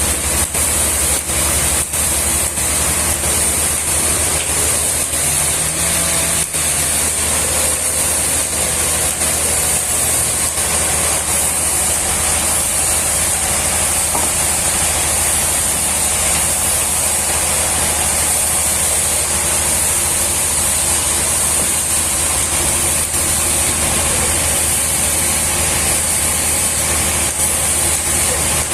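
Steady machine running, a constant low engine hum under an even high hiss, unchanging throughout.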